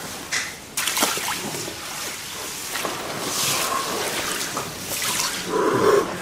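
Ice water sloshing and splashing in an inflatable pool as a person steps in and sits down among the ice. Over it come breaths blown out hard through pursed lips, the loudest near the end.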